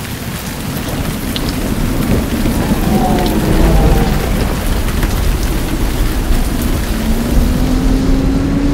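Thunderstorm: heavy rain falling with deep rolling thunder underneath, fading in over the first couple of seconds and then holding steady. A faint low rising drone comes in near the end.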